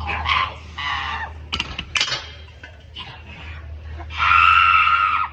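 High-pitched shrieking calls from a person's voice: short cries at the start, a few sharp clicks around the middle, then one loud held shriek about four seconds in, over a low steady hum.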